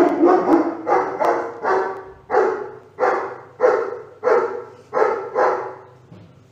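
A dog barking over and over at its reflection in a standing mirror: about a dozen short barks, roughly two a second, that die away near the end.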